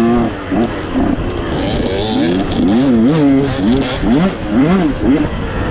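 Dirt bike engine revving on a twisty trail, its pitch rising and falling again and again as the throttle is opened and closed.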